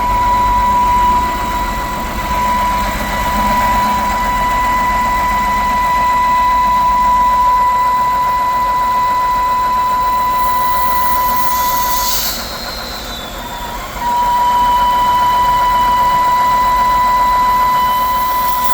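BMW N52 3.0-litre straight-six idling with a loud, steady, high whistle. The whistle cuts out for about two seconds after a brief hiss, two-thirds of the way in, then returns. It is a crankcase vacuum leak from a leaking valve cover gasket, and the whistle stops when the oil filler cap is off.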